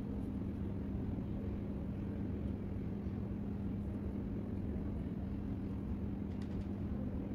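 Steady low background rumble with a constant low hum, unchanging throughout; a few faint clicks about six and a half seconds in.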